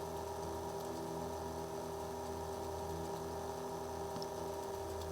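Vintage Derbyshire watchmaker's lathe running at a steady speed, a continuous hum of several fixed tones, with a few faint ticks from the graver cut on the brass workpiece.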